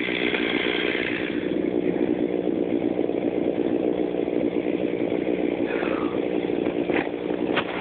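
Stihl two-stroke chainsaw coming off full throttle about a second in and then idling steadily. A few short clicks near the end.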